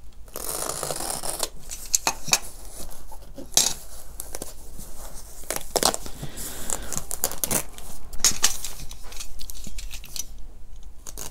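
Snap-off utility knife blade slicing through a stitched linen parcel wrapper in a run of scratchy strokes, then the cloth wrapper and the newspaper inside being torn and pulled open.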